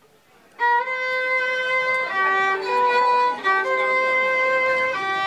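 Solo violin, bowed, coming in about half a second in and playing a slow phrase of held notes that swing back and forth between two pitches.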